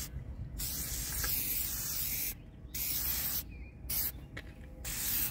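Aerosol can of headlight clear coat spraying in several hissing bursts, the first nearly two seconds long and the rest shorter: the coating step of a headlight restoration, laid over the polished lens.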